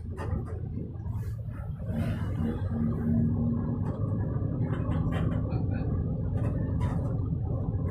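Inside a moving car: steady low rumble of engine and road noise, with a hum that stands out briefly around two to three seconds in and scattered light clicks and rattles.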